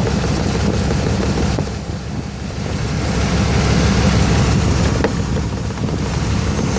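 2003 Dodge Ram 1500 engine idling with the A/C on full and the compressor drawing in refrigerant from a recharge can on the low-pressure side. A steady hum with a rushing noise over it that grows louder about three seconds in.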